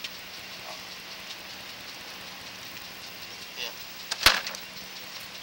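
Sewer inspection camera's push cable being pulled back through a drain pipe: a steady hiss with light crackling scrapes and one sharp knock a little over four seconds in, over a faint electrical hum.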